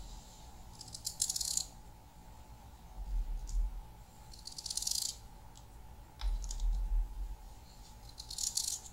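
Kitchen knife slicing through a peeled raw potato held in the hand: three short crisp cutting strokes about three and a half seconds apart, with a few soft low bumps in between.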